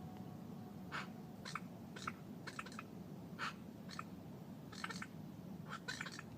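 Ducks quacking, a dozen or so short calls at irregular intervals, singly and in quick runs of two or three, over a low steady background hum.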